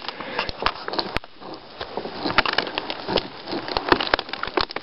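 A dead standing tree being pushed by hand: irregular cracks and snaps of wood splintering, with rustling brush, as the trunk gives way at its base.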